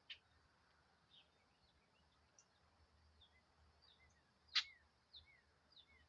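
Small birds chirping faintly, a string of short falling notes every half second or so, with one much louder sharp note about four and a half seconds in.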